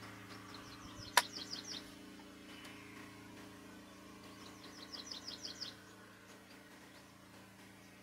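A bird calling: two runs of quick, high, repeated chirps, about six a second, with one sharp click about a second in. A faint steady low hum lies underneath.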